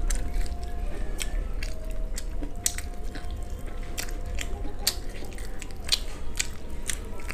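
Close-miked eating of crispy fried chicken: a bite, then chewing and tearing the breaded chicken apart by hand, with many irregular sharp crunchy clicks.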